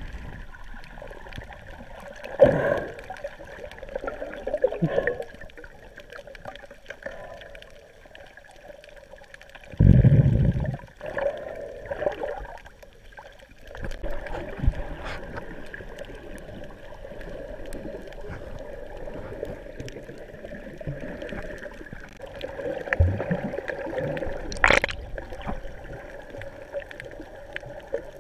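Muffled underwater water sound heard through a submerged camera, with gurgling and sloshing from a snorkeler swimming over a reef. There are louder swishes a few seconds in, a heavy low thump about ten seconds in, and a sharp click a few seconds before the end.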